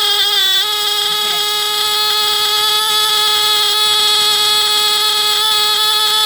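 1970s Hudson Mfg Co Model 200 heat-detector security and fire alarms sounding a loud, steady alarm tone, tripped by heat from a hair dryer. The pitch wavers briefly in the first half-second, then holds steady.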